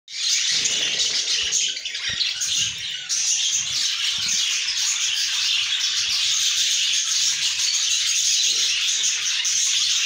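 Budgerigars chattering all at once: a dense, continuous mass of high chirps, with light scratchy knocks underneath.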